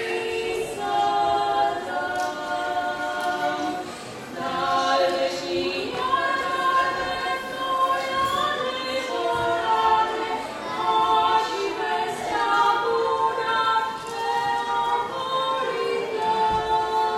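Two women singing a Romanian Christmas carol (colindă) together, unaccompanied, in long held notes, with a short breath pause about four seconds in.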